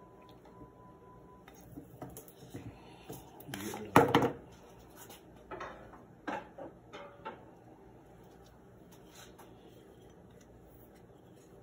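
Clicks and knocks of the air rifle's metal parts being handled and fitted together. One loud clack comes about four seconds in, followed by a run of smaller clicks, then it goes quiet.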